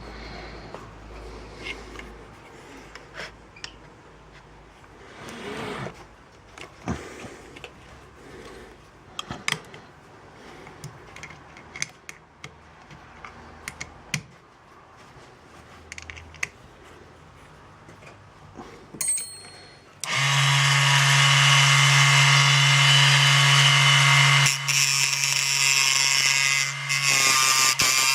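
Scattered light clicks and knocks of handling, then, about two-thirds of the way in, a Raitool 80W 24V DC mini lathe's motor switches on suddenly and runs loud and steady with a humming whine and a hiss, its sound shifting once a few seconds later.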